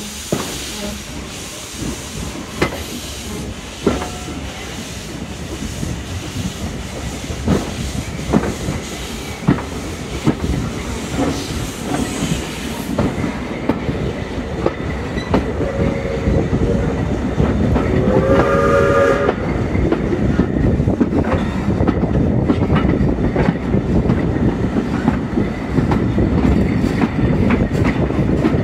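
Riding in a carriage behind two steam locomotives: wheels clacking over rail joints and the running noise growing louder as the train gathers speed. About halfway through, a locomotive's steam whistle sounds twice in quick succession.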